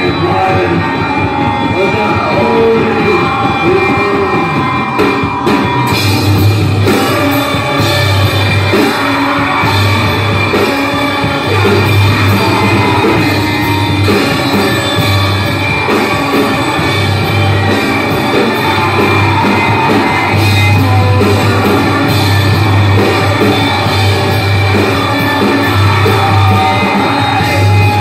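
Live rock band playing loud, with sung and shouted vocals; a heavy pulsing bass comes in about six seconds in.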